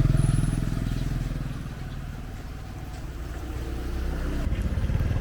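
Motorcycle engine running, easing off about two seconds in and picking up again near the end.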